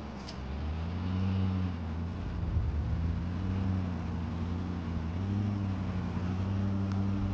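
A vehicle engine running steadily under load while it hauls on a taut rope line. Its pitch rises a little twice.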